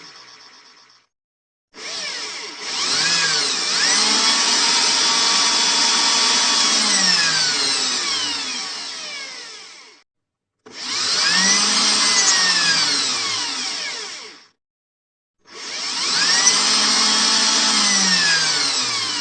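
Electric drill motor run in repeated bursts. It stops about a second in, then makes three runs of several seconds each, separated by short breaks. In each run the pitch rises as the motor spins up and falls as it slows down.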